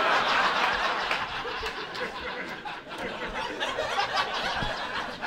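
Comedy-club audience laughing, loudest at the start and easing off.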